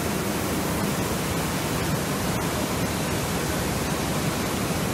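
Steady rushing noise of flowing floodwater.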